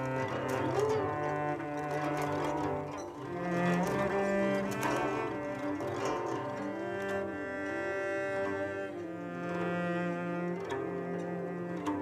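Cello bowed in long sustained low notes that change every second or two, under a quick, repeating up-and-down figure in a higher register.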